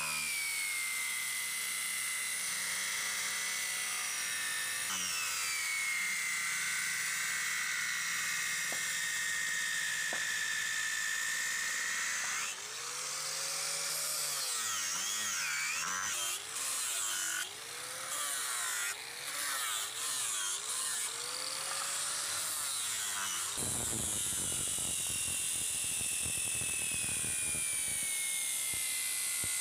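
Angle grinder with a small abrasive disc running at high speed with a steady high whine, cutting a groove into the wooden blade of a cricket bat. The pitch sags and wavers in the middle as the disc bites into the wood, with a few brief breaks in the sound.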